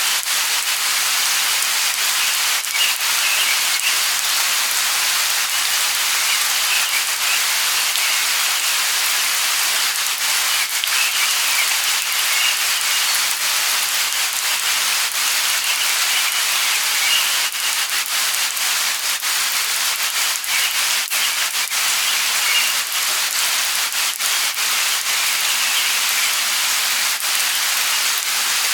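Light rain falling steadily, a constant hiss with single drops pattering, and short high bird chirps now and then.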